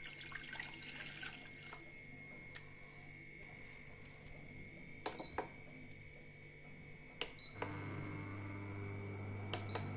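A glass of water being poured into a pan, then several sharp clinks of glass and metal. A steady low hum sets in about three-quarters of the way through.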